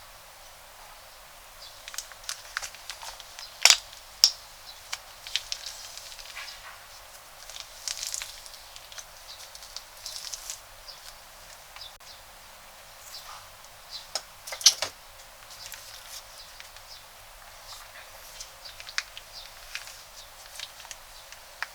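Crunchy slime being squeezed and worked by hand, giving irregular crackles and small pops, with a few louder snaps about four seconds in and again near the middle.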